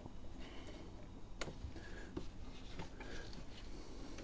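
Faint scattered clicks and light scraping as a stiff coolant hose connection low in a Fiat 500's engine bay is worked loose by hand, with a few brief faint squeaks.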